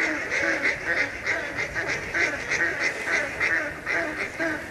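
A group of waterfowl calling over and over: short calls that rise and fall in pitch, several a second and overlapping one another.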